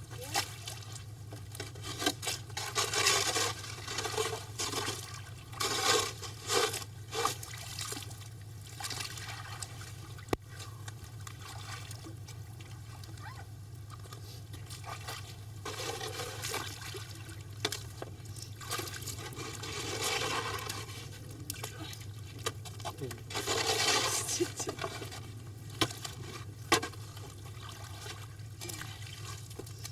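Water and slushy ice chunks splashing and scraping at an ice-fishing hole, in irregular bouts, over a steady low hum.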